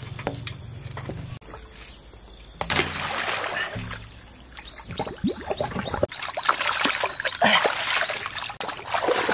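Water splashing and sloshing in a shallow pond as the hose of a portable water pump is worked through it, turning to a busy gush of water from the hose in the second half. A small engine hums low in the first second or so.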